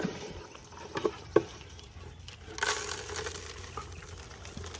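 A few sharp knocks, then a pattering rush a little over halfway through, like dry goat feed being poured into a feeder, fading into a softer rustle.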